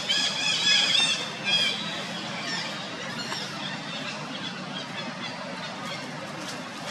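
Long-tailed macaque squealing: a quick run of loud, high, wavering cries over the first two seconds, then a few fainter cries.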